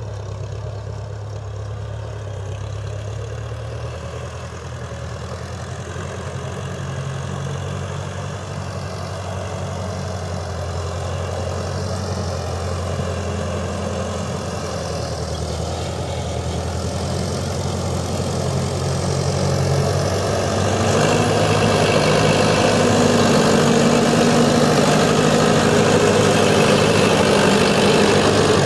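A motor vehicle's engine running steadily, growing gradually louder, with a louder, rougher stretch from about two-thirds of the way through.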